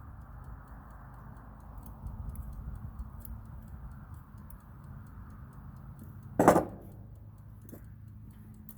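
Small metal parts of a toaster oven being handled during a teardown: faint scattered ticks and clicks over a steady low hum, with one loud sharp metallic clank about six and a half seconds in.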